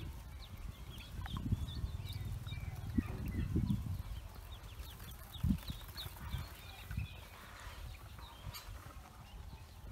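A group of Pekin ducklings peeping, many short high peeps overlapping, over a low rumble with a few soft thumps, loudest in the first half with a sharper thump around the middle.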